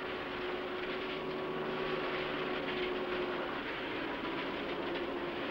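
Concrete pump running: a steady mechanical noise with a constant low hum, with no distinct strokes or changes.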